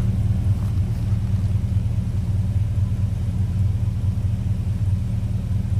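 1965 Studebaker Daytona's engine idling steadily, heard from behind the car at its twin exhaust pipes as an even, deep rumble.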